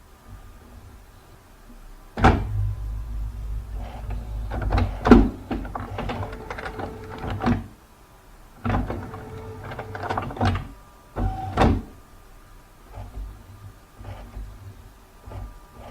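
Computer scanner running: its motor hums in stretches of a few seconds, with sharp clicks and knocks where each stretch starts and stops.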